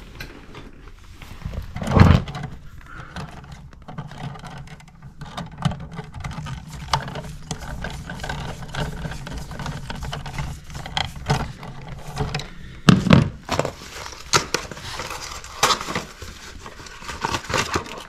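Hand work on electrical wires in a plastic wall box with pliers: scattered clicks, scrapes and knocks of the tool and wires, with two louder thumps, about two seconds in and about thirteen seconds in.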